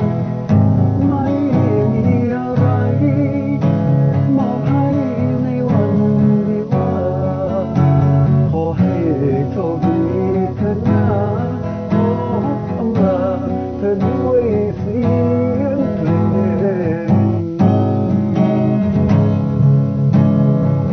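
Guitar-led song music: strummed guitar accompaniment under a wavering melody line, with no words sung.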